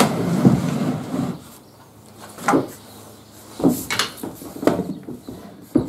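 A rough scraping of wood against wood for about a second and a half, then a few separate sharp knocks on a solid pine cabinet.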